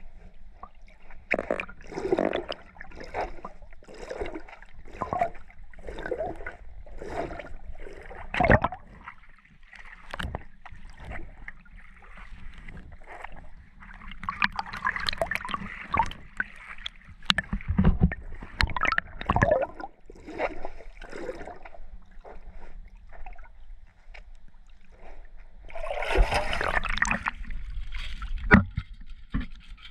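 Water slapping and sloshing against a small boat in repeated bursts, about one a second at first. Near the end there is a louder rush of water streaming off as a wire crab drop net is lifted out of the sea.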